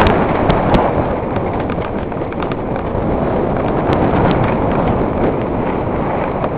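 Mountain bike rolling fast downhill over loose gravel: a constant rough crunch of tyres on stones, with the bike rattling and sharp clicks and knocks as it goes over bumps, most of them around the start.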